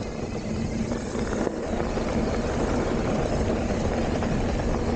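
Steady rumbling noise of a mountain bike climbing slowly on a dirt trail, with a faint steady hum underneath.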